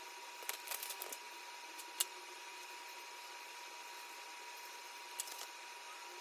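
Small clicks and taps of desk work while studying, scattered: a quick cluster in the first second, one sharp click about two seconds in, and a couple more about five seconds in. Under them runs a steady hiss with a faint high steady tone.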